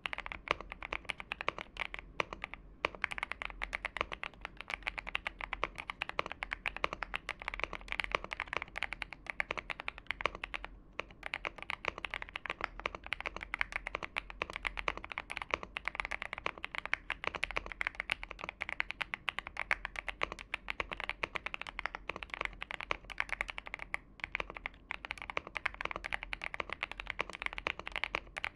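Continuous fast typing on a Xinmeng A66 mechanical keyboard with lubed and filmed Boba U4T tactile switches on a polycarbonate plate, a dense run of keystroke clacks with a few brief pauses.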